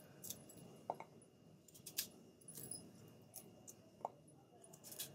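A knife slicing fresh ginger on a ceramic plate: faint, scattered clicks and light taps of the blade against the plate.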